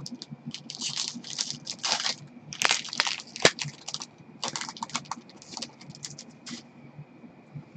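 Trading cards and pack wrapper handled by gloved hands: a run of crinkling rustles and sharp clicks, densest in the first four seconds and thinning out after about six, over a faint steady high whine.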